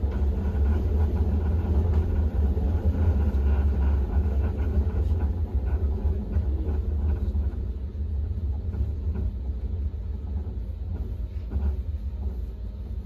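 Steady low rumble of a moving SkyTrain car, heard from on board, easing slightly after about eight seconds.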